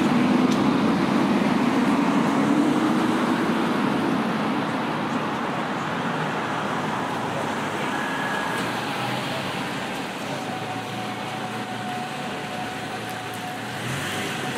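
A road vehicle goes by, its engine and tyre noise loudest over the first few seconds and then fading away.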